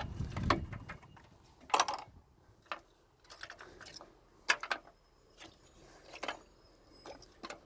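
Scattered clicks, knocks and small rattles as a hand rummages inside the wet, gutted metal casing of a salvaged parking ticket machine, moving its loose internal parts and keypad. The knocks come at irregular intervals, the sharpest about two seconds in and again midway.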